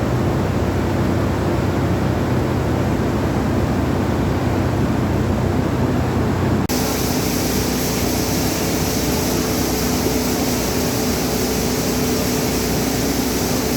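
Paddy grain dryer machinery running with a steady mechanical drone and hum. About halfway through, the sound changes abruptly to a hissier drone with a different hum.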